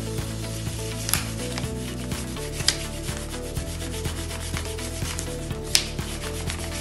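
A hand rubbing back and forth over a folded sheet of paper with wet paint inside, pressing the paint out between the halves: a continuous dry rubbing with a few louder sharp scrapes.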